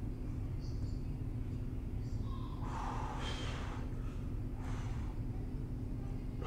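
A man breathing out hard twice, once long and once short, through the mouth while holding a flexed bodybuilding pose. A steady low room hum runs under it.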